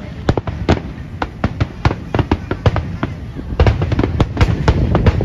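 Aerial fireworks shells bursting in rapid succession: a dense run of sharp cracks and booms, several a second, over a continuous low rumble, getting busier about two-thirds of the way in.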